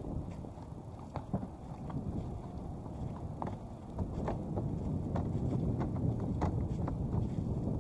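A horse's hooves knocking irregularly as it walks over a mat-covered platform obstacle, a sharp knock every half second or so, over a low rumble of wind on the microphone that grows louder in the second half.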